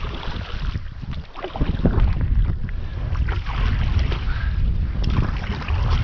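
Canoe paddle stroking through choppy water with splashes, while wind buffets the microphone in a heavy low rumble.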